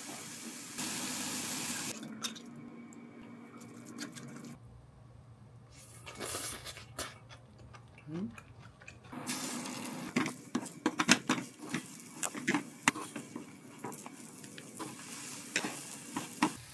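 Kitchen sounds: water running from a tap, then dishes and utensils clattering in many short knocks and clicks.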